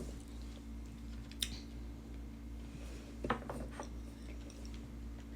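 A few faint clinks of tableware being handled: one about a second and a half in, two more a little after three seconds, over a steady low hum.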